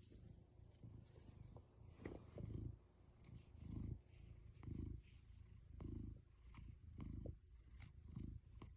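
Domestic cat purring, a low purr that swells and fades with each breath, roughly once a second.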